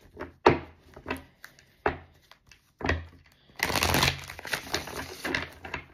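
Deck of tarot cards knocked a few times with sharp taps as it is squared, then riffle-shuffled on the table: a dense run of quick card flicks lasting about two seconds.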